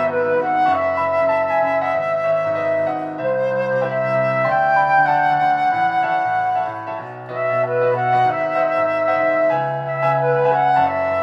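Solo flute playing a pop-song melody in sustained notes over an instrumental backing track with held bass notes.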